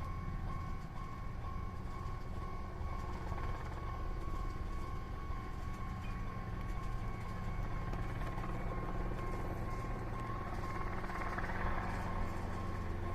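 Japanese railway level-crossing warning bell ringing steadily, over continuous low vehicle noise that grows a little louder in the second half.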